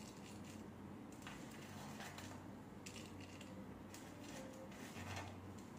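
Quiet room with a steady low hum and a few soft clicks and rustles of chopped dry fruits being pinched from a bowl and sprinkled onto glasses of lassi.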